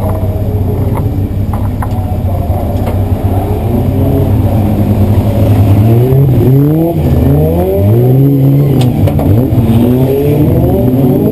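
Euro Rod race car's engine idling, then revved up and down again and again from about four seconds in.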